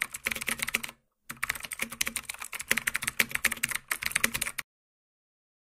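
Computer keyboard typing: rapid key clicks with a short pause about a second in, stopping about a second before the end.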